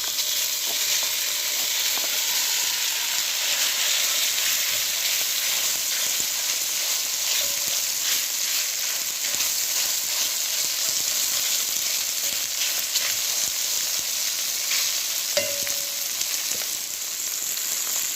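Strips of beef searing in hot oil in a crowded pot, sizzling steadily with many small crackles and pops as one side browns.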